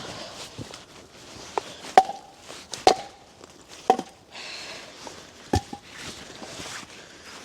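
Hatchet chopping into wood: four solid strikes about a second apart and a lighter one before them, each with a short ringing knock, amid rustling between strokes.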